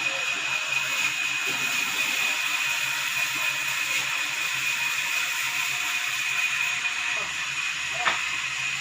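Sawmill saw running with a steady high whine over a hiss, and one sharp knock about eight seconds in.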